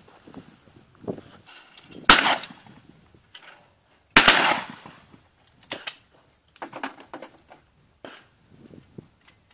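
Shotguns firing at clay targets: two loud shots about two seconds apart, followed by several fainter cracks.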